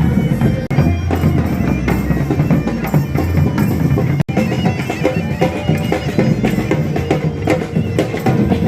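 Live street band music: a reedy wind-instrument melody over a steady held drone, with drums beating. The sound cuts out for an instant a little over four seconds in.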